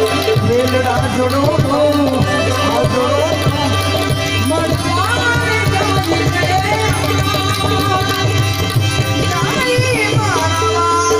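Instrumental Indian devotional music: tabla playing fast strokes under a melody instrument that slides between notes, over a steady low drone.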